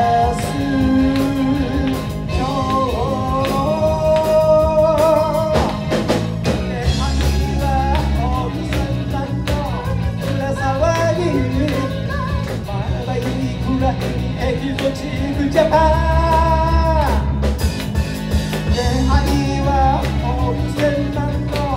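Live band playing an upbeat pop-rock song: a lead vocal over electric guitar, bass guitar, drum kit and keyboard. The singing includes a couple of long held notes.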